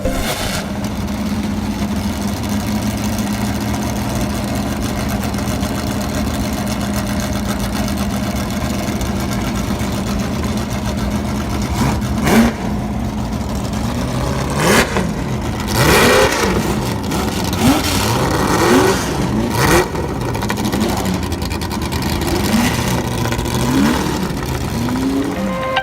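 Ford GT40's V8 engine idling steadily, then blipped repeatedly from about halfway through, each rev rising and falling in pitch, with a few sharp cracks among the revs.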